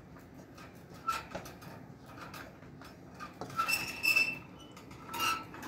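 Handling noise as a rabbit sitting in a metal bowl is stroked: light rustles and clicks, then louder scraping with a brief ringing tone about four seconds in and again near the end.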